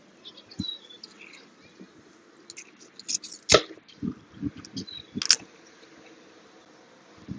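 Boiled crawfish being eaten and peeled by gloved hands: shells snapping and cracking, with soft wet chewing and sucking sounds in between. The loudest crack comes a little past halfway, and another sharp one about two seconds later.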